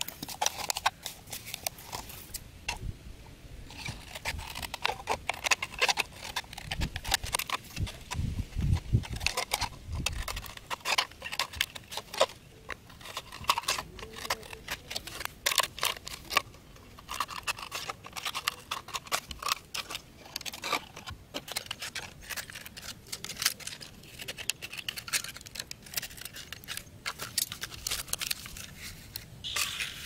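Thin plastic water bottle crackling and crinkling as it is handled, cut with scissors and tied with cord: an irregular run of sharp clicks and crackles, with a low rumble for a couple of seconds about a third of the way in.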